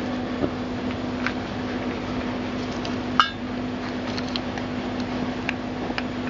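Small metal camp kit being handled: one sharp metallic clink with a short ring about three seconds in, and a few fainter ticks and taps, over a steady low hum and hiss.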